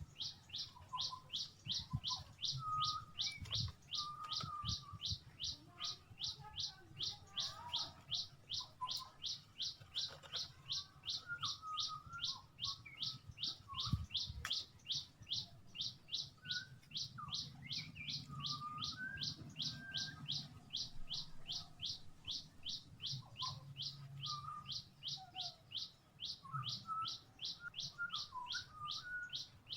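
Small bird chirping over and over at an even pace, about two to three high, falling chirps a second without a break, with softer, lower twittering from other birds in between.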